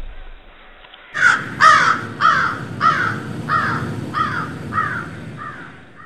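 Crow cawing in a regular run of about nine caws, a little over half a second apart, starting about a second in and fading away toward the end.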